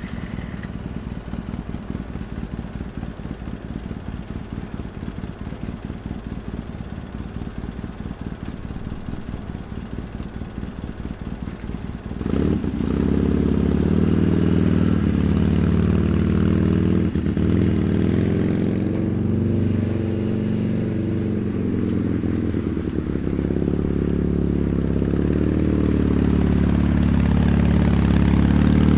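Hot rod engine running: first a rhythmic, pulsing idle, then about twelve seconds in it gets suddenly louder and runs steadily at higher revs.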